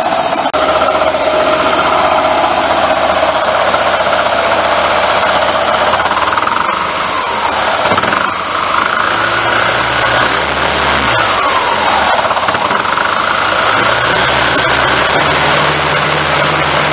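Small single-cylinder gasoline engine of a homemade jet boat running loud, driving the jet pump through its new chain-and-sprocket gearing. Its revs rise and fall several times in the second half as the throttle is worked.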